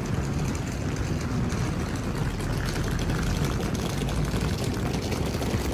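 Wind buffeting a phone's microphone in the open: a steady, uneven rush that is heaviest in the low end.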